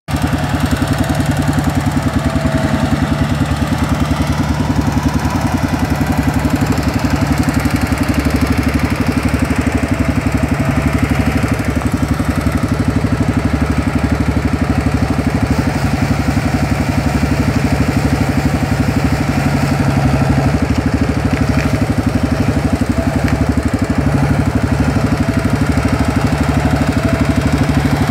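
Diesel engine of a three-wheeled Bell feller buncher running steadily as the machine works, a low, evenly pulsing rumble.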